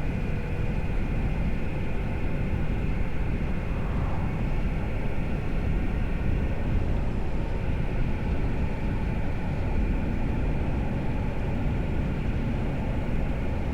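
Steady wind rush and engine drone of a Yamaha MT-10 motorcycle being ridden, heard through a helmet microphone.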